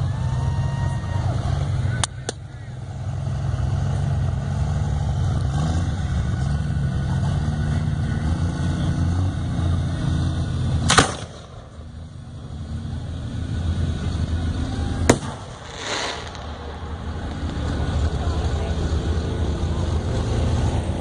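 Aerial firework shells bursting in sharp bangs: two close together about two seconds in, one near the middle, and two more close together later on, over a steady low rumble.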